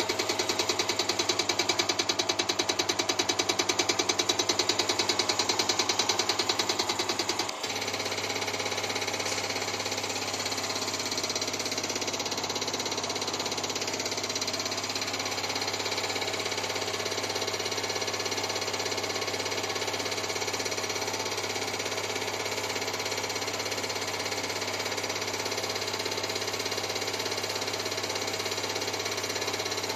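Diesel injector test bench running a CAT C7/C9 HEUI injector test at 12 MPa oil pressure: the injector fires in a rapid, even ticking over the bench's motor and pump. The ticking cuts off suddenly about seven seconds in, leaving the bench running with a steady, lower hum.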